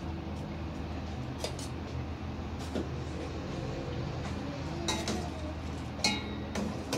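Metal utensil clinking against a stainless steel pot and bowl as boiled bok choy is scooped out, a few separate clinks over a steady low rumble. The sharpest clink, about six seconds in, rings briefly.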